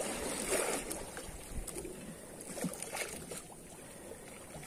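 Sea water washing against a small fishing boat's hull, with wind on the microphone and a few faint handling clicks.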